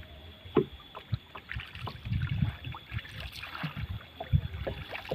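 A small canoe being paddled: a wooden paddle dipping and pulling through the water with soft splashes and water sloshing against the hull, and a few light knocks scattered through.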